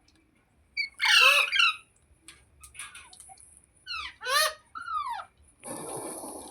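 Pet green parrot giving harsh squawking calls: a long call about a second in, then shorter calls with sweeping pitch around three to five seconds in. A short burst of noise follows near the end.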